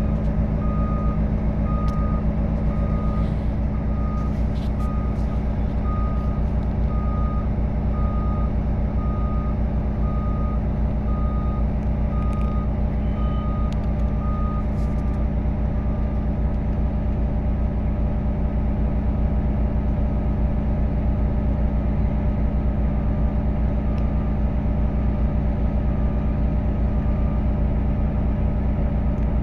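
Heavy diesel engine running steadily while a vehicle's reversing alarm beeps at about one and a half beeps a second. The beeping is clear for about the first half and grows faint in the second half.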